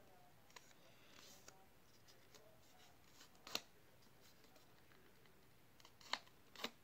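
Paper being folded and creased by hand: faint rustling with a few short, sharp crinkles, one about three and a half seconds in and two close together near the end.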